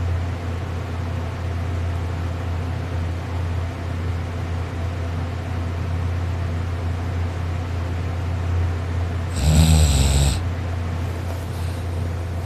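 A sleeping person snoring, with one loud snore about a second long near the end, over a steady low hum.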